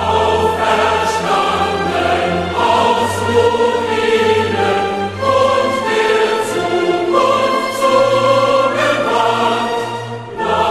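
Background music: a choir singing long held chords over a steady low bass, the chords changing every second or two.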